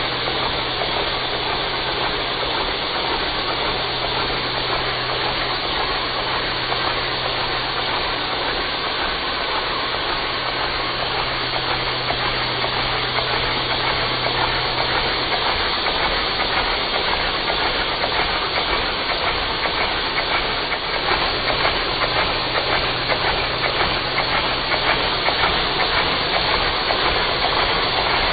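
Steady rushing hiss of vacuum-cleaner suction driving a four-cylinder oscillating LEGO vacuum engine, with a low hum that drops out about halfway through and comes back briefly later.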